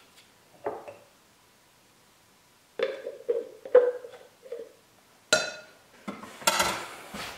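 A utensil scraping leaf lard out of a plastic tub into a glass mixing bowl of flour, a run of short scrapes. Near the end comes a sharp clink, then clattering of utensils against the glass bowl.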